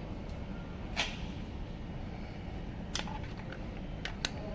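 A few sharp clicks and taps from hands handling an Ethernet cable and an IPTV set-top box: one about a second in, another near three seconds, and a quick pair near the end, over a steady low hum.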